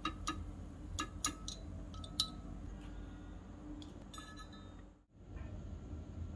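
A tiny metal utensil clinking and scraping against a miniature metal wok as fried bread pieces are turned and lifted out: a handful of light, separate clinks, the sharpest about two seconds in. Past the middle the sound cuts out briefly, leaving a faint steady hum.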